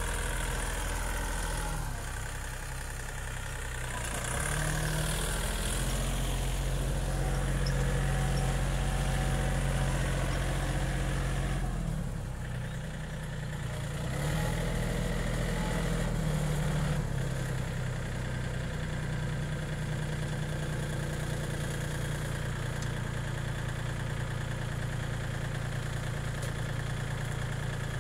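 Diesel engine of a Yanmar compact tractor running steadily under load while it drives a rotary tiller through the soil, its note dipping and shifting a few times.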